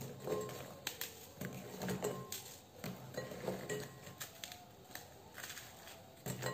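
Dry biscuits snapped into pieces by hand, irregular sharp cracks, with the pieces dropping and clinking against a glass bowl.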